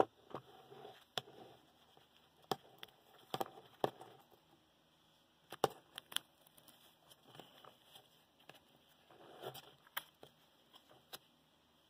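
Handling noises from a small low-temperature-differential Stirling engine turned over by hand on a wooden table: irregular sharp clicks and knocks, with short rustles near the start and about three-quarters through.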